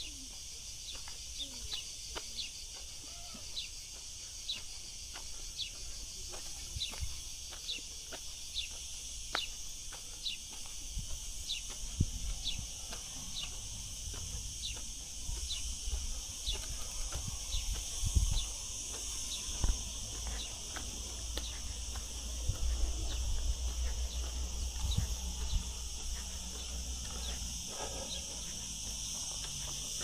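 Insects buzzing steadily, with a short high chirp repeating about once a second that fades away in the last few seconds, over a low rumble that grows in the second half.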